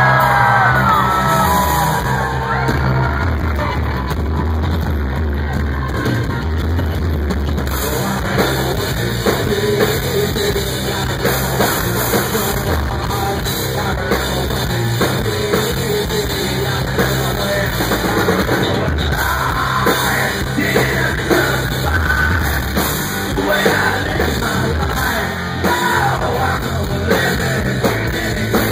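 Rock band playing live and loud: distorted electric guitar, bass guitar and drum kit, with yelled singing at times.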